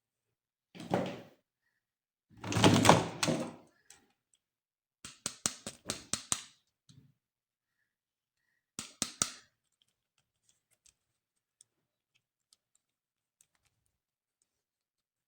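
Plastic toy and packaging being handled: two scraping rustles, then a quick run of about eight sharp clicks, and a few more clicks a little later.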